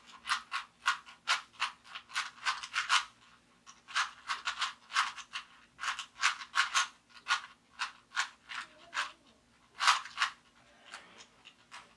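Rubik's cube being twisted by hand: quick runs of plastic clicking and rattling as the layers turn, pausing briefly twice.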